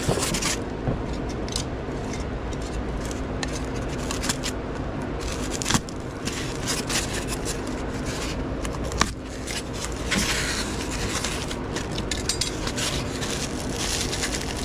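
Styrofoam packing block rubbing and scraping in the hands, with scissors cutting the packing tape partway through and a plastic wrapper crinkling near the end.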